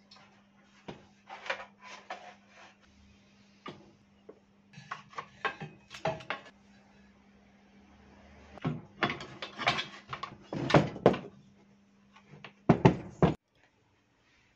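Irregular clatter, knocks and rattles of metal bike parts and tools being handled on a wooden workbench while a pocket bike is dismantled, over a steady low hum. The sound cuts off sharply a little after 13 seconds.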